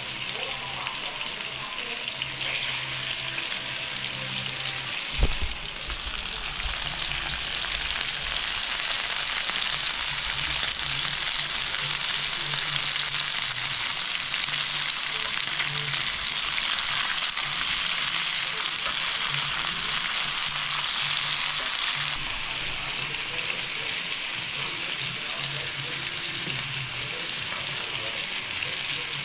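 Bonito fillets sizzling in hot oil in a skillet. The sizzle grows louder as more fillets go into the pan, then eases off a little near the end. There is a single knock about five seconds in.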